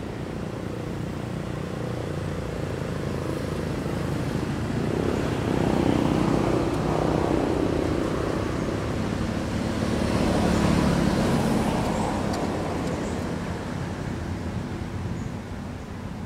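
Low engine rumble of a passing motor vehicle, slowly swelling to its loudest in the middle and fading again near the end.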